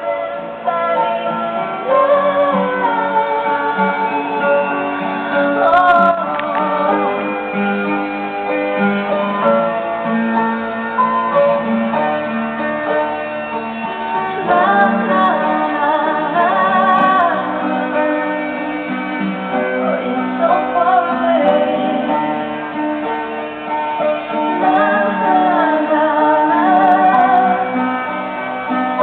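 A pop song with a female singer playing through a vintage Pioneer KP-5800 car radio/cassette player under test. The sound is muffled, with almost no treble.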